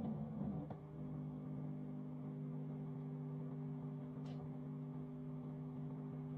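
Microwave oven running with a steady hum, a small click under a second in and a faint tick about four seconds in.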